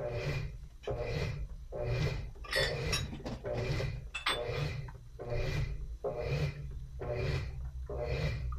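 Top-loading washing machine in its wash cycle, the agitator swishing back and forth over a steady motor hum, about three strokes every two seconds. A few light clinks come about two and a half to four seconds in.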